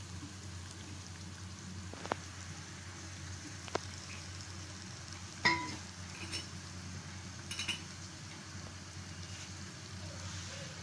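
Sliced onions frying in hot oil in a kadai: a steady sizzle, with a few sharp clinks of the stirring spatula against the pan, the loudest about five and a half seconds in.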